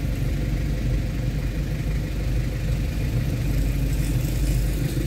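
Vehicle engine running at low speed with road noise, a steady low rumble heard from on board the moving vehicle.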